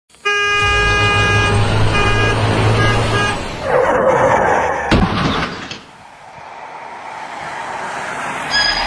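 A vehicle horn honks, one long blast and then two short ones, over a low engine rumble. Then a rushing swell, a sharp thud about five seconds in, and a hiss that slowly grows louder.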